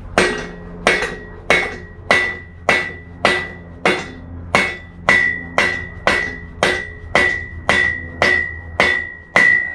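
Hammer blows on a stuck metal part to knock it free: a steady run of about seventeen strikes, a little under two a second, each leaving a short high metallic ring.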